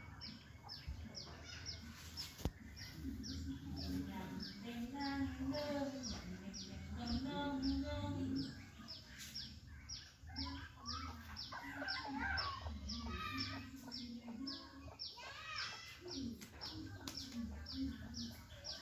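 A small bird chirping over and over in an even rhythm, about three short high chirps a second, with lower wavering calls in the background.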